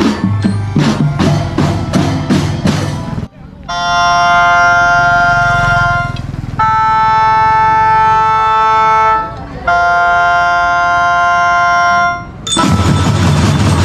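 A school drum band playing: marching drums beat steadily, then stop. The band's wind instruments sound three long held chords one after another, and the drums come back in near the end.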